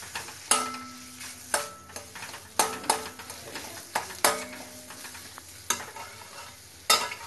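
Metal spatula stirring and scraping a thick fish-and-potato mixture frying in a metal kadai, with a soft sizzle underneath. Sharp knocks of the spatula against the pan come about once a second, several of them ringing briefly.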